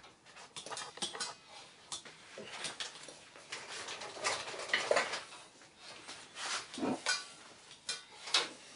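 Someone rummaging among small metal tools and parts: irregular clinks, clatters and rattles.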